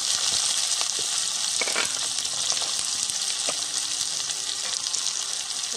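Chopped onion sizzling steadily in hot oil in an iron kadai, with a few sharp pops.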